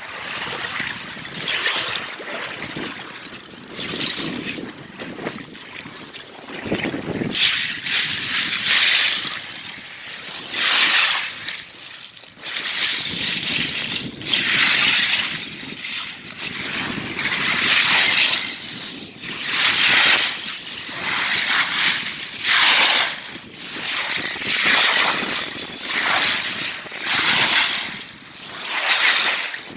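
Footsteps in boots crunching through rotten candle ice, each step shattering the sheet into loose needles of ice. The crunches are fainter for the first several seconds, then come strongly about every second and a half.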